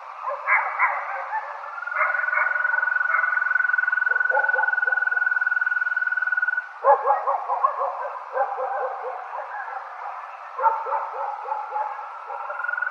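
Night ambience sound effect: a steady, high trill holds for several seconds, stops, and starts again near the end. Between the trills come bouts of quick, repeated yelping animal calls.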